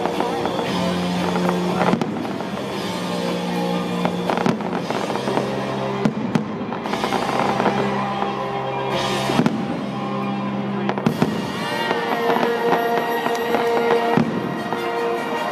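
Aerial fireworks shells bursting in repeated bangs over music with long held notes.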